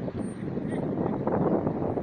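Flash floodwater rushing down a wadi, a steady dense rush of water noise.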